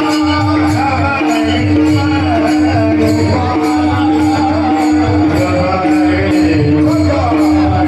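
Varkari bhajan group singing over a steady held drone, with brass hand cymbals (taal) striking a steady beat about twice a second and a barrel drum keeping time underneath.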